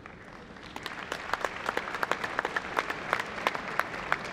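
Audience applauding, the clapping growing fuller about a second in.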